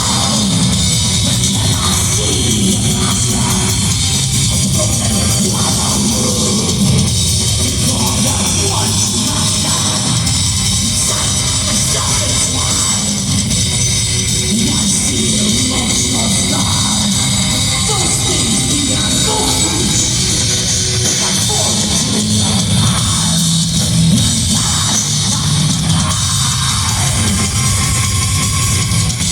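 A heavy metal band playing live at full volume, with distorted guitars and a pounding drum kit forming a dense, unbroken wall of sound.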